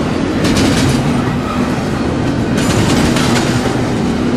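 Double-stack container train's loaded well cars rolling past close by, a steady rumble of steel wheels on the rails with scattered clicks.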